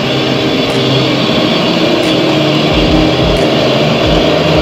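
Steady mechanical drone of a Daihatsu Taft 4x4's engine and front winch as the stuck vehicle is pulled slowly through deep mud. A few short low thumps come in the second half.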